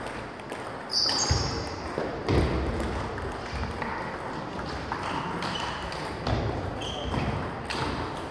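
Celluloid/plastic table tennis balls ticking off bats and tables in an irregular run of sharp taps from rallies at several tables, with a few louder low thumps.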